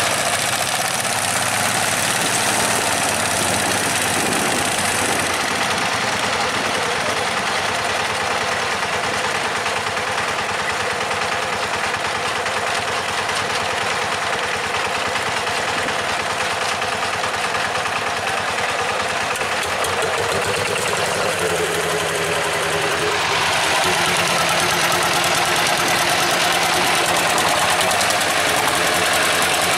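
Single-cylinder diesel engines of racing two-wheel walking tractors running with a rapid knocking beat. Past two-thirds of the way in the sound changes to a nearer engine with a steadier pitched beat.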